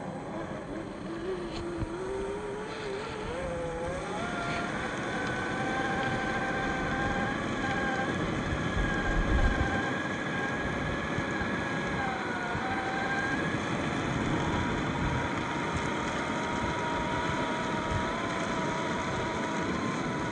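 Brushed 550 electric motor and geartrain of a Traxxas TRX4 RC crawler whining, rising in pitch over the first few seconds as it speeds up. The whine then holds fairly steady with a brief dip about twelve seconds in, over a rough noise from the drive.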